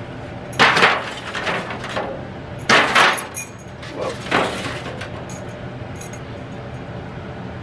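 Disposable aluminum foil pans crinkling and clattering as they are handled and set down. There are four or so short bursts over the first four and a half seconds, then only a steady low background.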